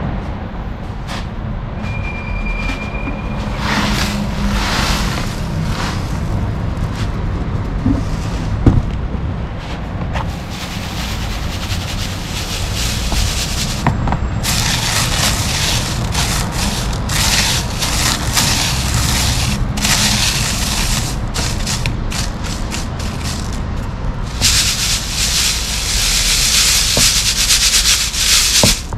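Dry gravel and sand being shaken and rubbed through a 2 mm prospecting sieve: a continuous gritty rasping made of many short rustling strokes, louder in stretches from about the middle on.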